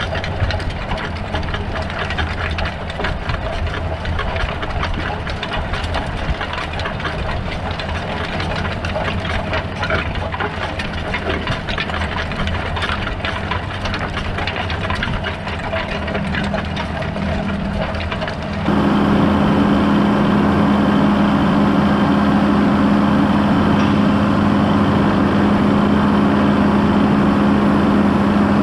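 John Deere 6930 tractor's six-cylinder diesel engine running steadily under load while pulling a cultivator, with a dense fine rattle over it. About two-thirds of the way through it switches abruptly to a louder, steadier drone with a strong low hum.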